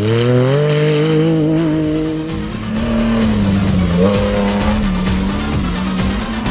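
Off-road race vehicle engines at high revs. One climbs in pitch through a gear change at the start and holds for about two seconds, then a second engine takes over on a steady, slightly wavering note.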